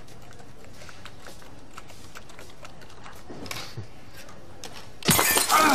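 Quiet room tone with a few faint clicks and rustles, then studio audience laughter breaks out loudly about five seconds in.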